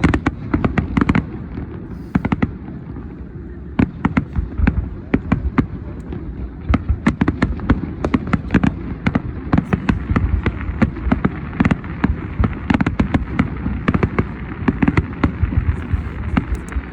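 Fireworks display: a dense run of sharp bangs and crackles over a low rumble, thinning out briefly about two seconds in, then coming thick and fast again.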